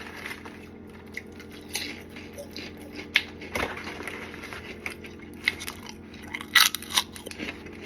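Someone chewing freshly microwaved pork rinds (chicharrones): irregular crisp crunches, loudest near the end, over a faint steady hum.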